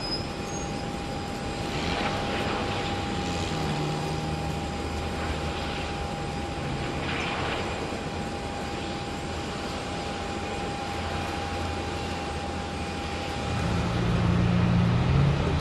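Airbus A380's four turbofan engines running as the airliner rolls along the runway: a steady jet rush with a thin steady whine. It grows louder, with a deeper hum, near the end.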